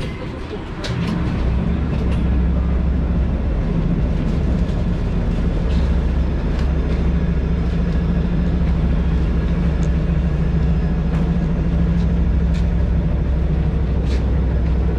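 Inside a standing LVS-86K tram: a steady low electric hum from its onboard equipment swells in about a second in and runs on evenly, with a few faint clicks.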